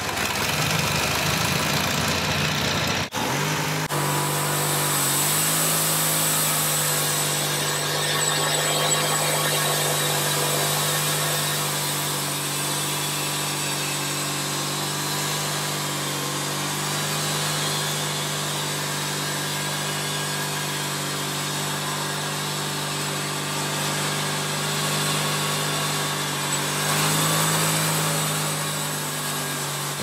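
Small 18-horsepower engine of a Wood-Mizer sawmill, just started, running at a steady speed; its note shifts slightly about five seconds in and again near the end.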